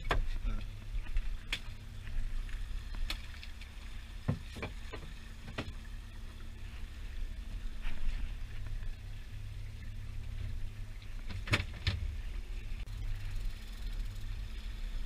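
A small fishing boat's outboard motor running steadily under way, a low hum. Sharp knocks from the hull and loose gear are heard now and then, the loudest pair about three-quarters of the way through.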